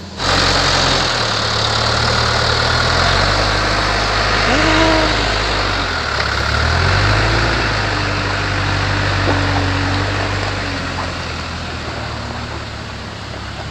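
Komatsu bulldozer's diesel engine throttling up and working under load as it pulls a stuck car, its pitch shifting a few times, under a loud rushing hiss.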